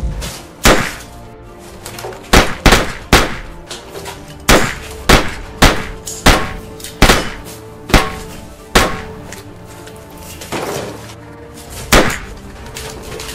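Handgun shots in a gunfight: about a dozen single sharp cracks at uneven intervals, some close together in pairs, over a steady music score.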